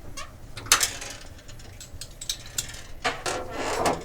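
Metal tools and small parts being handled: scattered clicks, a sharp knock about a second in, and a longer rattling scrape near the end.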